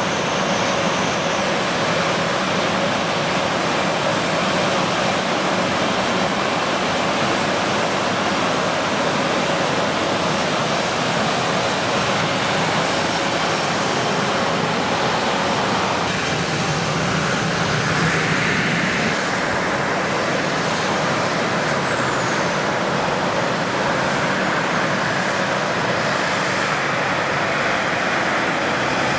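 Gulfstream G550's twin Rolls-Royce BR710 turbofan jet engines at takeoff power: a steady, loud jet roar with a thin high whine that falls in pitch a little over two-thirds of the way through.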